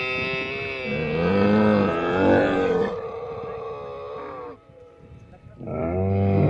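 A dromedary camel calling: one long call that wavers in pitch and stops about four and a half seconds in, then after a short pause a second call begins near the end.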